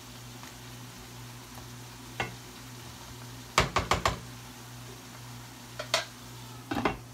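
Wooden spatula knocking against a metal sauté pan, with a quick run of taps about three and a half seconds in, then a glass lid clattering onto the pan near the end. A low steady hum runs underneath.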